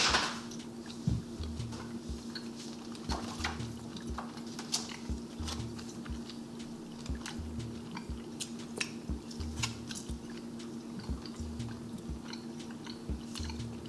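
Gum being chewed close to the microphone: irregular wet clicks and smacks of jaws working a stick of bar-type gum, over a steady low hum. A short burst of noise comes right at the start.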